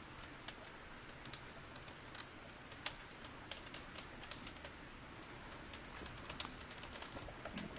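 Wood fire crackling: irregular sharp snaps and pops over a steady low hiss.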